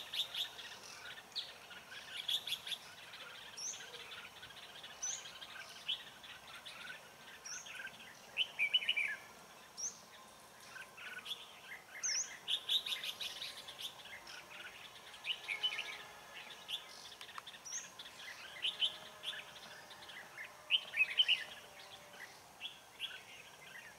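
Red-whiskered bulbuls singing and calling: a busy run of short chirps and warbled phrases, with a brief high note every couple of seconds.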